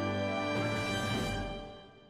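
Background music: a held chord that fades out near the end.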